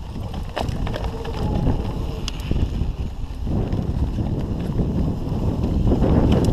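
Mountain bike setting off and riding a dirt trail: wind rushing over the camera microphone and tyres rolling over the ground, with scattered clicks and rattles, getting louder about halfway through as speed builds.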